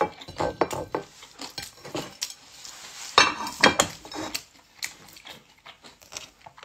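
Eating sounds: short clinks and scrapes on a ceramic plate as food is picked up by hand, with chewing in between.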